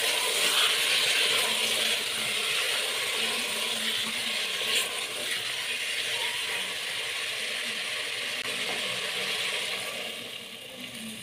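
Meat and onions sizzling in hot oil in an aluminium pressure cooker while being stirred with a wooden spoon, a steady crackling hiss. Near the end, water is poured into the pot and the sizzle dies down.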